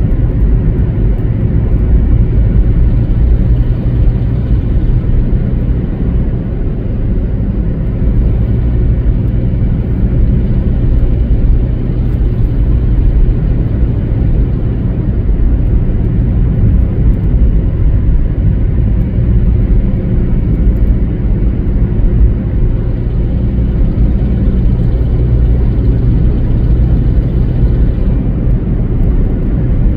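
A car driving at highway speed: a steady low rumble of tyre and engine noise with a faint hum.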